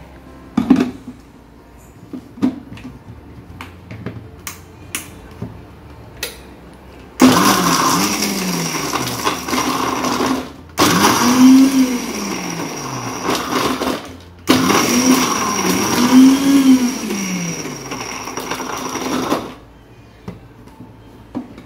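Electric mixer grinder (mixie) crushing Oreo biscuits into crumbs in three short pulses of a few seconds each, its motor whine rising and falling as it runs. A few light knocks come before the motor starts.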